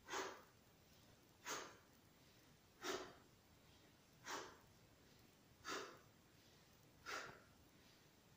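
A woman's short, sharp out-breaths, one with each crunch of an abdominal exercise, six in a row about every second and a half.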